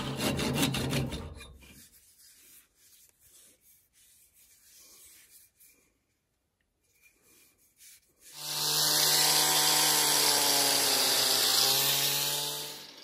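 A wood lathe with a turning tool cutting into the spinning workpiece for about a second and a half as the piece is parted off. Then a few quiet seconds of handling. From about eight seconds in, an electric power tool runs steadily with a low hum and a loud hiss for about four seconds before cutting off.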